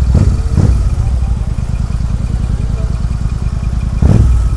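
Royal Enfield Continental GT 650's parallel-twin engine idling steadily. There are two brief louder bursts in the first second, and a rise in loudness about four seconds in.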